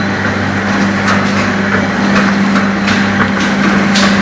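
Model 505 four-side-seal liquid sachet filling and packing machine running: a steady motor hum with a quick series of sharp mechanical clicks, about two to three a second.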